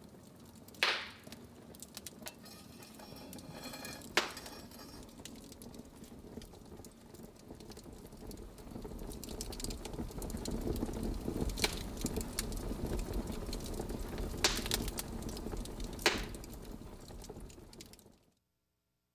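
Wood fire burning: sharp crackles and pops over a rushing of flames that grows louder through the middle, then cuts off suddenly near the end.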